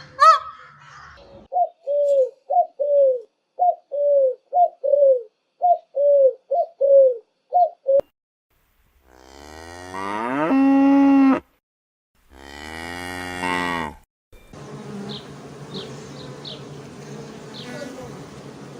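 Cow mooing twice in long drawn-out calls, after a quick run of about a dozen short, pitched animal calls; a steady buzzing hiss with a few high chirps follows.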